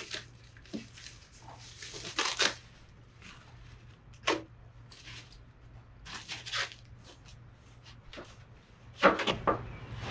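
Plastic packing wrap being rustled and pulled off fiberglass fender flares in a cardboard box, in irregular crinkling bursts. The loudest comes about nine seconds in.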